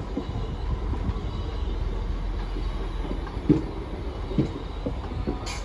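Class 321 electric multiple unit 321334, converted to carry parcels, passing close by: a steady low rumble of wheels on rail with short knocks, the loudest two a little past halfway and about a second apart, and a sharp click near the end.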